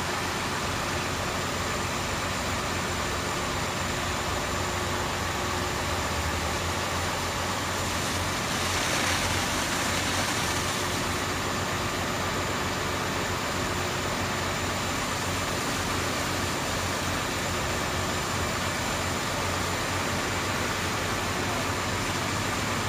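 A fire engine running its pump to feed a water stream: a steady engine drone under a constant rushing hiss, which swells briefly about nine seconds in.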